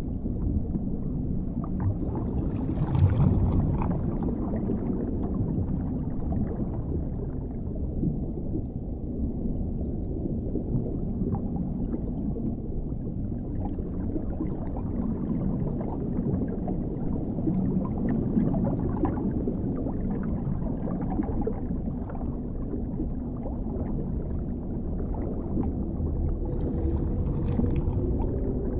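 Dark underwater ambience: a steady deep rumble with muffled gurgling, swelling briefly about three seconds in and again near the end, where a low, drawn-out tonal moan begins.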